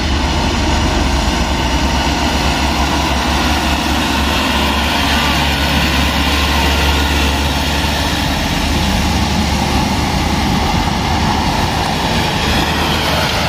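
Diesel engine of a Mitsubishi Canter dump truck, loaded with red bricks, running steadily as it pulls up the climb and passes close by, with a strong low hum.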